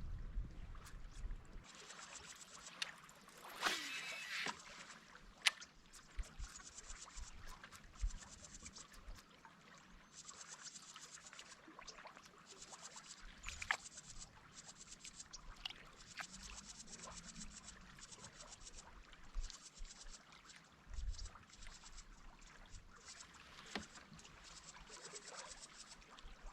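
Faint water lapping on a kayak hull, with scattered small clicks and knocks of fishing gear, a few of them louder.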